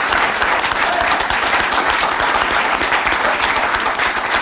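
A roomful of supporters applauding: dense, steady clapping.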